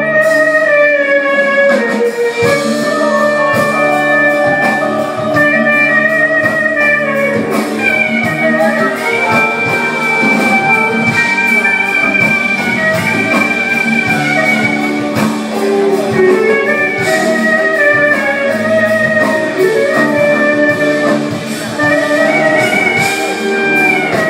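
Live band music with a lead melody of long held notes that slide and bend, over guitar and band accompaniment.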